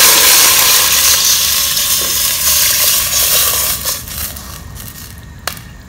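Water poured from a pot into a hot pot of pineapple, tomato and lemongrass sautéed in oil, rushing and sizzling, then dying down about four seconds in. A single sharp clink near the end.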